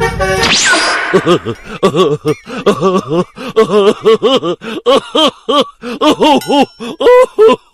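A quick swoosh, then a cartoonish voice giggling in a long string of short, bouncing syllables, about three a second.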